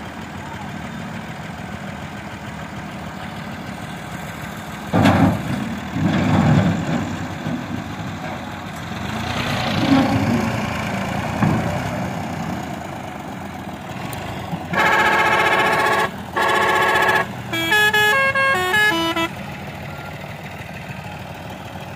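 A Massey Ferguson tractor's diesel engine runs and surges in revs a few times as it drags a loaded tipping trolley out of soft dumped soil. Near the end, a vehicle horn gives two long multi-tone blasts, then plays a quick stepped tune like a musical horn.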